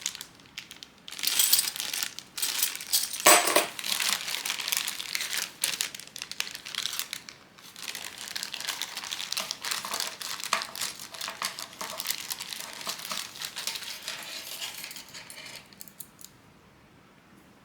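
Plastic packaging crinkling and rustling as it is handled, in irregular bursts that die away near the end.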